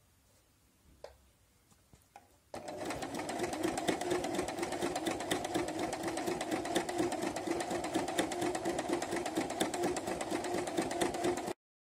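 Domestic electric sewing machine running steadily, stitching through denim with rapid, even needle strokes. It starts about two and a half seconds in, after a few faint clicks, and stops abruptly near the end.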